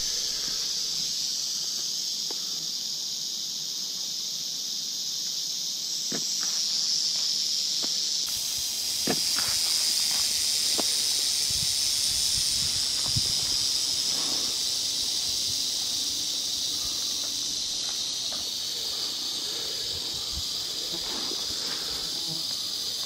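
Timber rattlesnake rattling: a continuous high, dry buzz that grows louder for a while in the middle as the camera closes in on the coiled snake, with a few faint rustles of footsteps in the brush.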